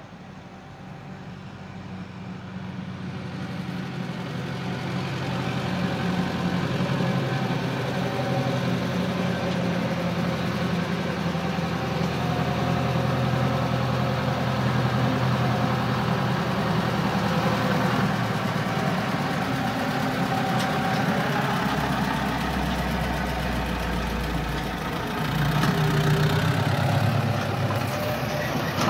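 Fortschritt ZT 303 tractor's four-cylinder diesel engine running as it pulls two trailers, getting louder over the first several seconds as it approaches, then steady. The engine's deep rumble is at its strongest for a few seconds near the end, as it passes close.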